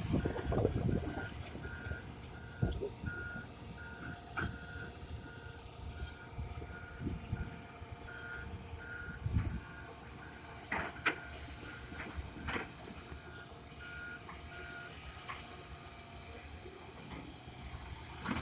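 Heavy-equipment backup alarm beeping evenly at about one and a half beeps a second over a running diesel engine, stopping a few seconds before the end. A few sharp knocks sound in the middle.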